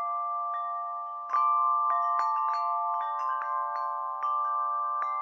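Slow bell-like music: single pitched notes struck about two or three a second, each left ringing so that the tones overlap in a sustained chime.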